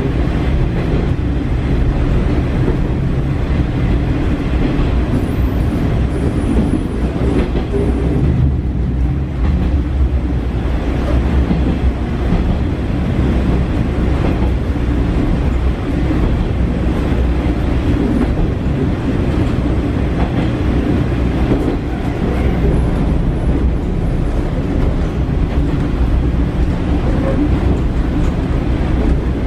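JR Shikoku KiHa 40 diesel railcar under way, heard from inside the passenger cabin: a steady low rumble of the underfloor diesel engine and running gear.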